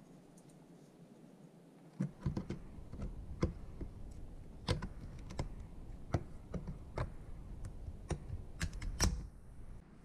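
Irregular plastic clicks and light knocks from hands working a drain hose and its plastic clamp on a dishwasher's sump and drain pump. They begin about two seconds in, after a short quiet stretch.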